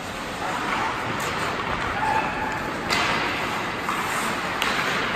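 Youth ice hockey game on the rink: a steady wash of skates scraping the ice, with a few sharp clacks of sticks and puck, the loudest about three seconds in, and short shouts from young players.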